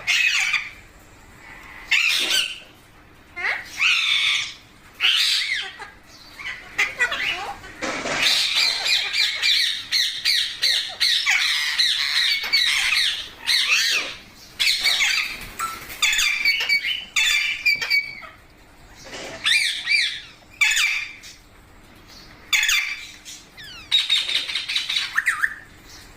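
Pet parrot giving a series of short, harsh squawks and screeches, some sliding up or down in pitch, with a longer run of rapid chattering calls lasting several seconds about a third of the way in.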